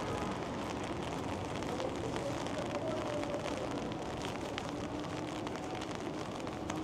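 Rainy city street ambience: a steady hiss of rain and passing traffic, with faint scattered ticks.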